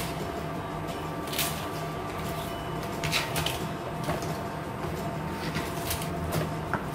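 Chef's knife cutting mustard green stalks on a bamboo cutting board: scattered sharp knocks, irregularly spaced, over a steady low hum.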